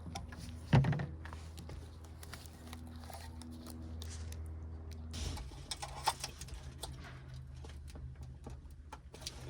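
Scattered clicks and knocks of parts and tools being handled, with a louder thump just under a second in, over a steady low hum.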